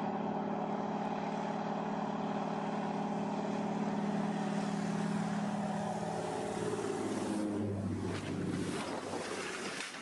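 An engine running with a steady drone, its tone shifting about seven seconds in.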